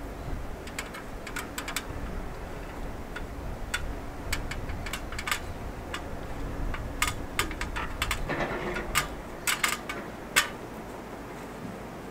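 Scattered light clicks and knocks as a man handles and climbs down an aluminium ladder leaning on a steel shipping container, busiest near the end. A low rumble underneath drops away about eight seconds in.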